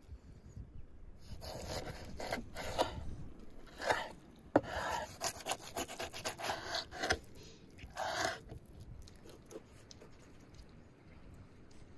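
Kitchen knife sawing through raw cow tail on a wooden cutting board: repeated scraping strokes of the blade, with a sharp knock about four and a half seconds in. The strokes die down after about nine seconds.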